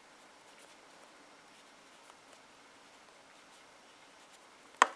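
Near silence: faint room tone with a few soft ticks while clear hard gel is squeezed from a plastic bottle into a plastic jar, then one sharp click near the end from the plastic bottle and jar being handled.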